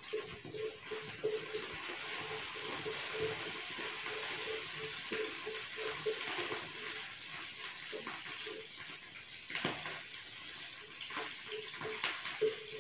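Mustard seeds, fenugreek and dried red chillies sizzling in hot coconut oil in a non-stick frying pan, stirred with a wooden spatula. A steady hiss with scattered sharp ticks, more of them in the second half.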